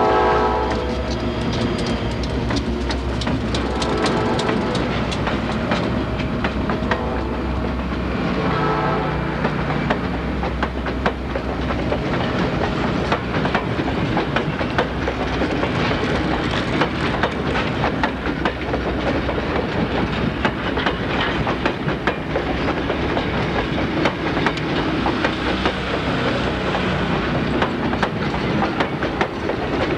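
Reading & Northern passenger train passing close by: a diesel locomotive goes past at the start with a falling pitch, then passenger coaches roll by with steady rumbling and rapid clickety-clack of wheels over rail joints. A few brief pitched tones sound in the first ten seconds.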